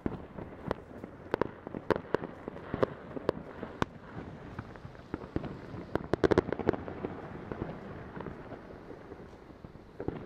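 Fireworks going off all around: irregular sharp bangs and crackles, with a rapid burst of bangs about six seconds in and fewer, fainter ones over the last few seconds.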